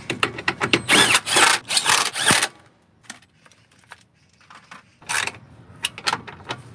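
A cordless impact driver with a socket runs in short stuttering bursts and then a longer run of a second or so, rattling as it drives in the bolts of the truck's underbody cover. It stops after about two and a half seconds, leaving a few light metal clicks, and then two more short rattles come near the end as the next bolt is done up.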